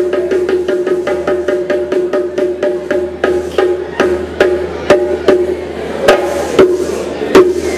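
Live band music: fast, even percussion strikes over sustained pitched notes, thinning out about halfway through into fewer, louder sharp hits.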